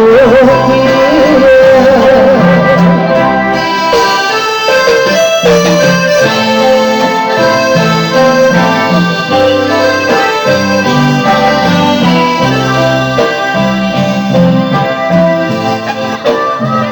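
Instrumental break in a song: long held melody notes over a repeating bass line, with no singing.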